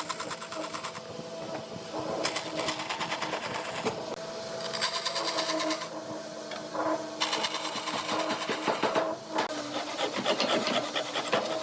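A small power tool working wood: a fast buzzing rattle over a steady motor hum, its texture shifting every second or two as the work goes on.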